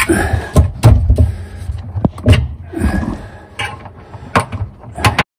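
Irregular knocks, clicks and rattles of the calorifier's metal mounting strap being worked against its bracket while trying to line up the holes, with low thuds from the tank being shifted. It cuts off suddenly shortly before the end.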